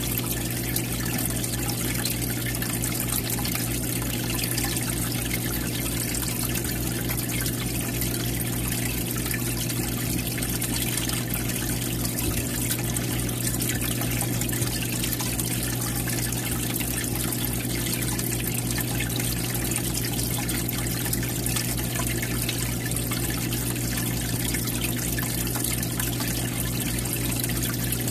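Aquarium filter return water trickling and splashing steadily into the tank, over a low steady hum.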